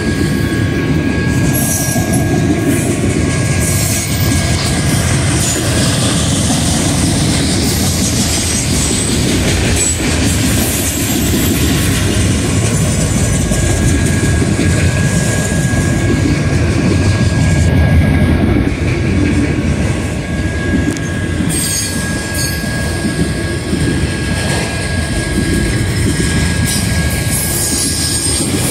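Freight train of enclosed autorack cars rolling past close by: a steady, loud rumble of wheels on rail, with a thin high-pitched wheel squeal running through it that fades out for several seconds in the middle and then returns.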